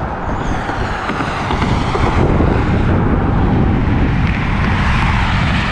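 Wind buffeting the microphone over the noise of cars passing on a bridge road.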